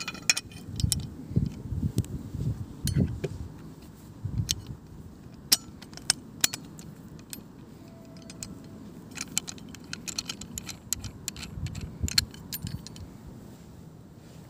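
Folding survival shovel multi-tool being assembled by hand: irregular sharp metal clicks and clinks as the handle section is fitted into the shovel head and locked, over low handling rustle.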